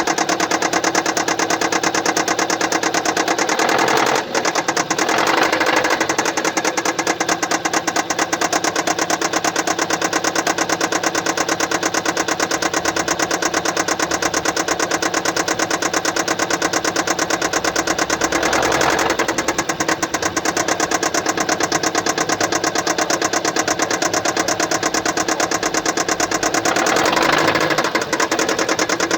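2015 Kia Sportage SL's 2.0-litre four-cylinder petrol engine (G4KD) running with a steady, fast ticking, with a few brief swells. This is the characteristic noise of a defective fuel injector.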